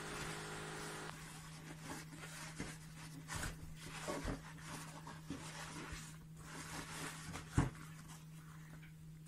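Faint rustling and crinkling of tissue paper being unwrapped by hand, with a few soft taps and one sharper tap near the end, over a steady low hum.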